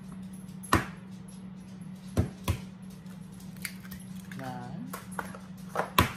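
Raw eggs being cracked one after another over a glass mixing bowl: a sharp tap of shell for each egg, half a dozen taps spread over a few seconds.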